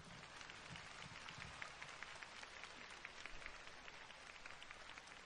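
Faint audience applause, an even patter of many hands clapping.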